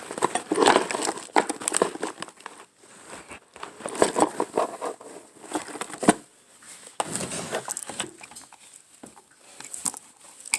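Rustling and crinkling with scattered clicks and knocks, the sound of someone rummaging through things by hand while searching for something.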